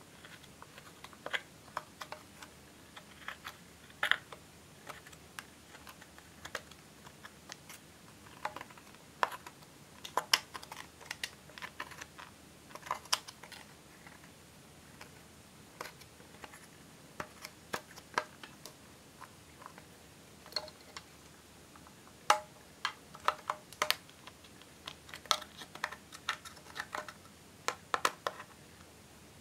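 A small metal spatula scraping and chipping pressed eyeshadow out of a plastic palette's pans: irregular sharp clicks and scratches, often in quick clusters.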